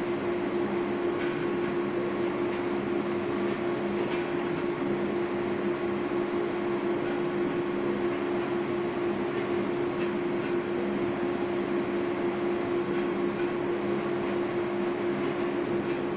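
Large-format flex banner printer running, its print-head carriage moving back and forth along the rail: a steady mechanical hum with a constant low tone and a few faint ticks.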